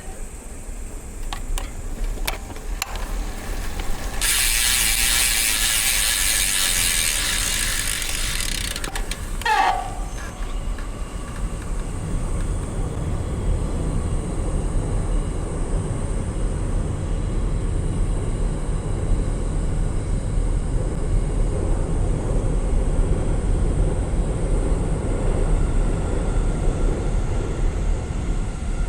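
Road bike's rear freehub (DT Swiss ARC 1100 wheel) buzzing loudly while the rider coasts. The buzz starts sharply about four seconds in and stops about five seconds later as pedalling resumes. Afterwards there is a steady low rumble of wind and tyre noise on the bike-mounted microphone.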